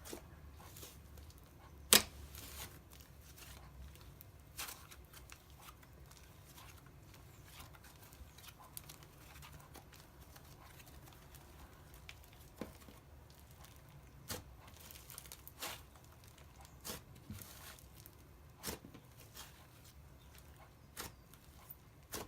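Butter slime being squished and spread by hand, giving scattered sticky clicks and pops, the loudest about two seconds in.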